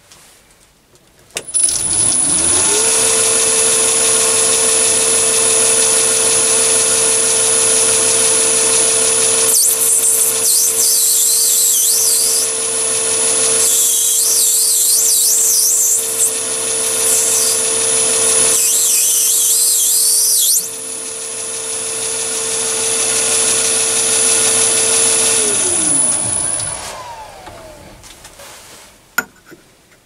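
Mini metal lathe's motor starting and winding up to a steady whine, with the chuck turning at about 800 rpm. A tool cutting the spinning brass workpiece gives three spells of shrill scraping. Near the end the motor spins down to a stop.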